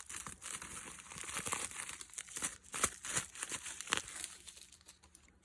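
Packaging crinkling and rustling as it is handled, with a few sharper crackles around the middle, dying down near the end.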